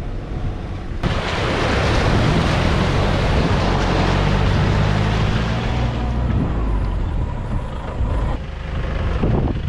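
Safari pickup jeep driving through shallow water on a sandy track: the engine running under a loud rush of splashing from the wheels, which starts about a second in, with wind buffeting the microphone.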